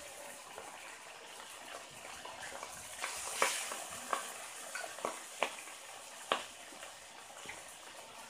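Catfish pieces frying in hot oil in a pan: a steady sizzle broken by a few sharp pops and crackles between about three and six and a half seconds in.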